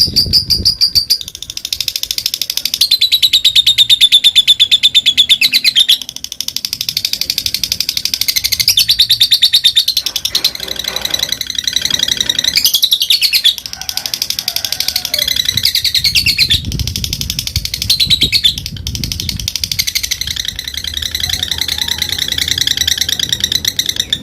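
Lovebird giving a long, very fast chattering trill ("ngekek"): a rapid run of high notes kept up almost without pause, with a few short breaks.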